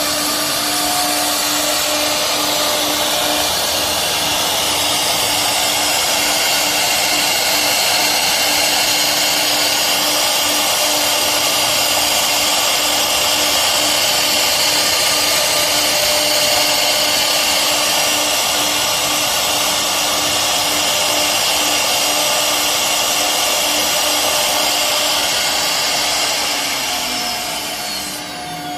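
CNC router spindle running at high speed, a steady loud whine over a rush of air and cutting noise. Near the end it winds down, its pitch falling as it slows.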